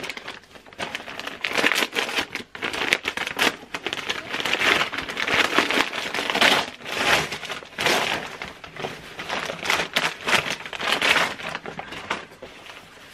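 Paper gift wrapping rustling and crinkling in irregular bursts as a small package is opened by hand.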